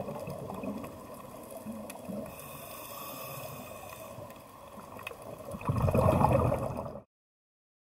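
Water sound, a noisy wash with scattered clicks. It swells louder about six seconds in, then cuts off abruptly about a second later.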